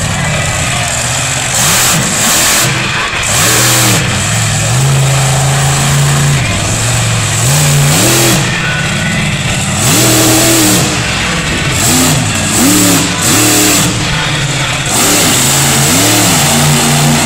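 Monster truck engine revving hard again and again, its pitch climbing and dropping with each throttle stab, including one long high hold and a string of quick blips near the end. Bursts of loud broad noise come and go with the hardest pulls.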